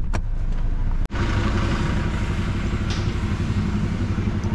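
A click of a car's inside door handle being pulled, then, after a sudden break in the sound, a vehicle engine idling steadily.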